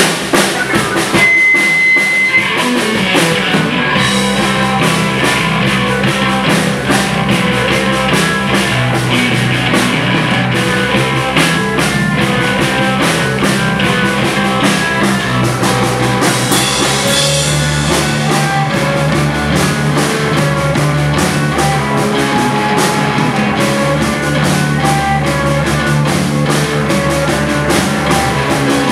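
Live rock band playing loud: electric guitars and two bass guitars over a drum kit, a dense, steady wall of sound with driving bass notes. A short high-pitched whine cuts through about a second in.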